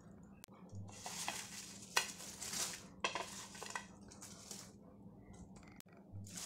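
Thin polythene bag rustling and crinkling as fried potato fries are tipped and slid off a ceramic plate into it, in several short, soft bursts with light scraping against the plate.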